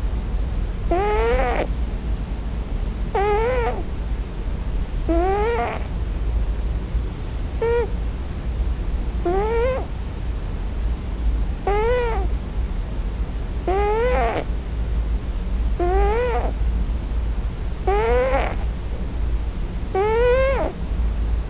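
Scottish Fold cat giving plaintive mewing cries, about ten of them, one every two seconds or so, each rising then falling in pitch. The owner takes them for the cat crying for its mother in its sleep on its first night in a new home.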